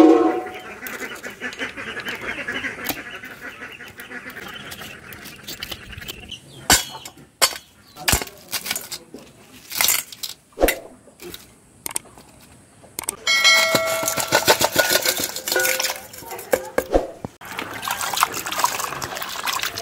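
Raw crabs being cleaned by hand: a run of sharp clicks and knocks of crab shell, then water sloshing and splashing near the end as the crab pieces are washed by hand in a bucket.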